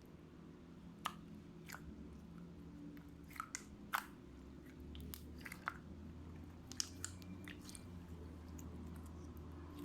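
Fluffy slime worked by hand, giving off scattered sharp pops and clicks at irregular intervals over a steady low hum.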